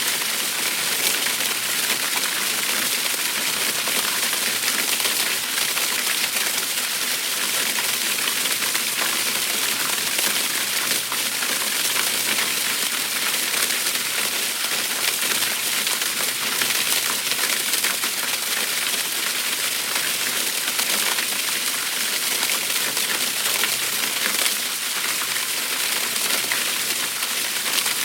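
Water rushing down a sewer spillway: a steady, dense splashing hiss full of fine spatter.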